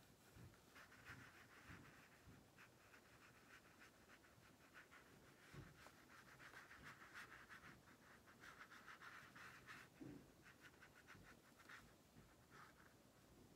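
Faint strokes of a thin paintbrush on paper, coming in quick runs with short pauses between them.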